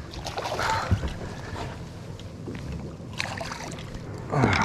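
Background noise aboard a small fishing boat, with a steady low hum, water and a few handling knocks. A short falling voice-like grunt or exclamation comes near the end.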